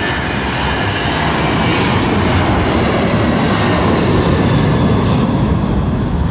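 Jet2 Boeing 737's engines at takeoff thrust as the airliner climbs out after lifting off: a loud, steady jet roar with deep rumble, swelling a little towards the middle.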